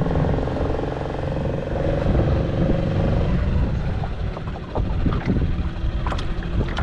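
A small boat's outboard motor running steadily, with a low rumble under it. From about four and a half seconds in, scattered knocks and clatters join it.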